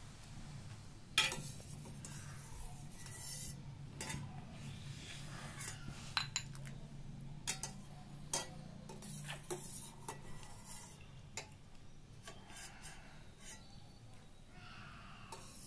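Stainless steel ladle clinking against a steel pot and a glass bowl, a dozen or so sharp clicks spread out, while boiled pieces of dough are scooped from the cooking water with soft splashes of water. A steady low hum runs underneath.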